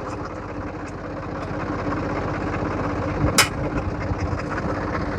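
Tractor diesel engine idling steadily, with a single sharp metal clank about three and a half seconds in, as of the hitch and implement pins.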